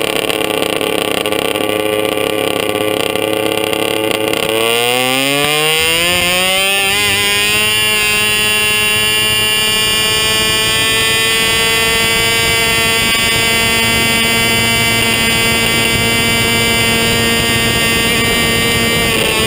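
Drag-racing golf cart engine heard onboard, running at a steady pitch, then revving up over a couple of seconds about four seconds in and holding a high, steady pitch as the cart runs down the track.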